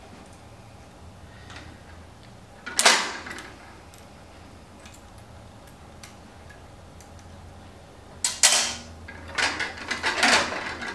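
Metal-on-metal handling of a hydraulic torque wrench's swivel assembly as it is taken apart by hand: one sharp clack about three seconds in, then a run of clicks and knocks from about eight seconds on, over a low steady hum.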